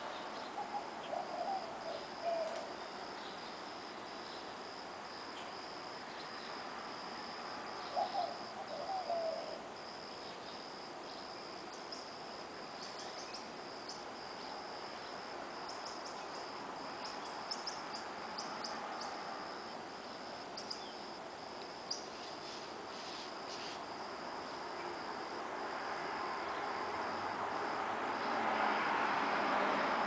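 Crickets trilling steadily on one high tone, with birds chirping and calling over it in short, scattered notes. Traffic noise from an approaching vehicle builds over the last few seconds.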